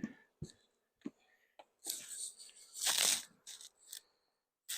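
Irregular scraping and rustling with a few sharp clicks: beehive equipment being handled, with the longest scrape about two to three seconds in.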